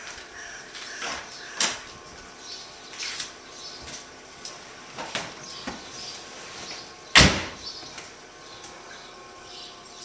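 Light clicks and knocks as someone gets into a Corvette convertible, then the car door shut with one loud thud about seven seconds in.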